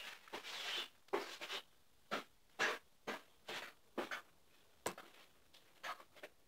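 Wooden toy train set pieces being handled and set down: irregular short scrapes and light knocks of wood, with one sharp click about five seconds in.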